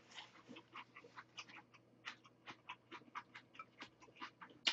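Faint, crisp crunching of celery being chewed close to the microphone: a run of short sharp clicks, about four a second.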